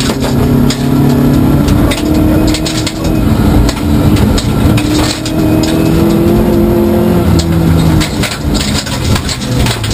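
Rally car engine revving hard, heard from inside the cabin, its pitch climbing and falling as the car is driven flat out on a gravel stage. Frequent short knocks and rattles of gravel and stones hitting the underbody run through it.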